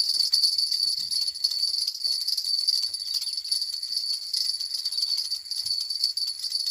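Insects buzzing in a steady, high-pitched chorus with a fast shimmering pulse.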